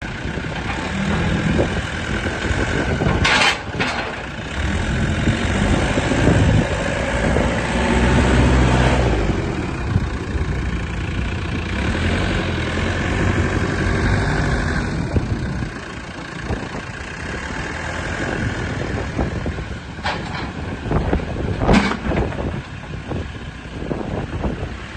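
JCB 3CX backhoe loader's diesel engine running, louder for a few seconds near the middle, with a few short sharp noises at about three seconds and again near the end.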